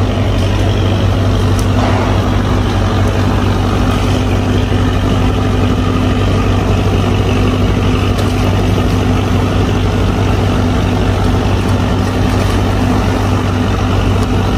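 A large vehicle engine idling steadily, a constant low hum with no change in pitch, over a background of general harbour noise.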